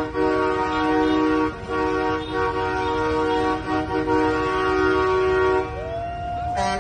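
Truck air horns honking in long held blasts, several horns sounding together as a chord. The blast breaks off briefly about a second and a half in and again near the end.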